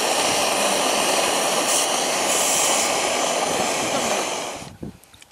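Pressurised liquid-fuel camping stove burner running at full flame under a pot, a loud steady rushing hiss that cuts off about four and a half seconds in.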